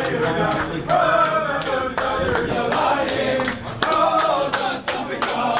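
A group of men singing together as they walk, with hand claps among the voices.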